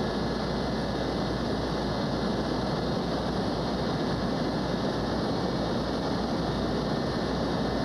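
Steady aircraft engine noise with a constant low hum underneath, holding at one level without rising or falling.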